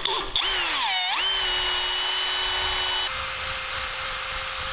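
Drill spinning a ball hone in the cylinder bore of a Predator 212cc Hemi engine block: the motor whine sags as the hone bites into the bore, steadies, then steps up to a higher pitch about three seconds in. Under it runs the scrubbing hiss of the abrasive balls on the cylinder wall, honing off rust and laying down a crosshatch.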